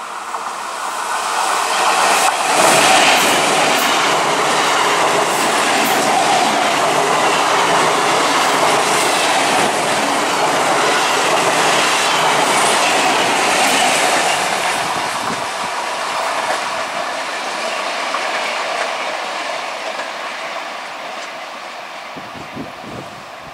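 Electric multiple unit (EMU) local train passing close by, its wheels clattering over the rail joints. It grows loud about two seconds in, stays loud while the coaches go by, then slowly fades as it moves away.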